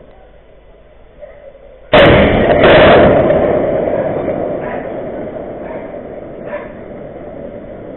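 Russian missile explosion: a sudden, very loud blast about two seconds in, with a second crack a moment later, then a long rolling rumble that slowly fades.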